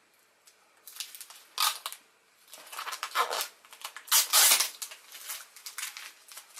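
Thin plastic protective film over a figure's display base crinkling and rustling as it is handled and peeled off, in several short bursts, the loudest about four seconds in.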